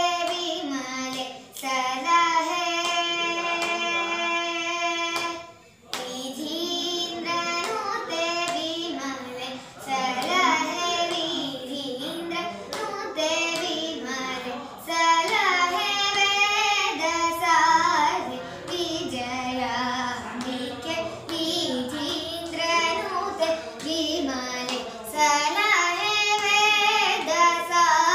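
A group of children and women singing a devotional song together in unison. The melody slides between notes, with one long held note a couple of seconds in and a short break near the six-second mark.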